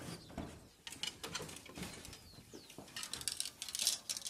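Lengths of dry peeled bamboo knocking and clattering against one another and the steel roof frame as they are handled into place, in scattered sharp clicks that thicken into a rattle near the end. A bird chirps briefly about halfway through.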